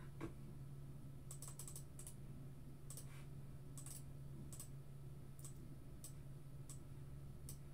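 Faint, scattered keystrokes of typing on a computer keyboard, irregular and a second or so apart, over a low steady hum.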